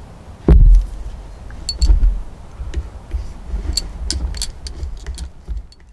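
A heavy thump about half a second in, then a series of light clicks and clinks, a few with a short ringing tone, as small hard objects are handled and set down.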